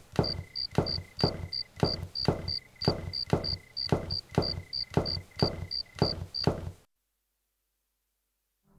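Footsteps walking at a steady pace, about three steps a second, over a regular row of short high chirps and a faint steady high tone. All of it stops abruptly about seven seconds in, leaving dead silence.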